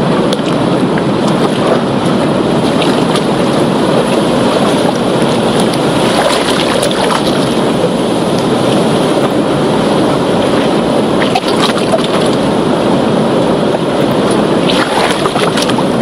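Ocean surf breaking and churning over rocks: a steady, loud rush of water with brief hissing crackles of foam now and then.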